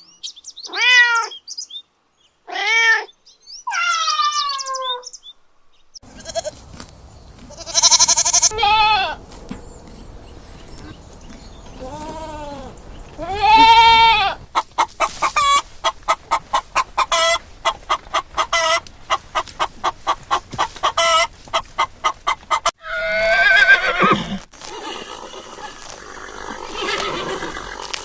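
Goats bleating in a run of separate clips: a few arching bleats with pauses between, then more bleats over a low background hum. In the middle comes a long stretch of quick, short animal calls at about three a second, and near the end more bleating.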